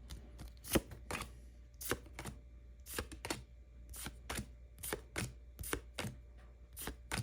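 Pokémon trading cards from a freshly opened booster pack being flicked over one at a time, each card giving a short, sharp snap, about two a second.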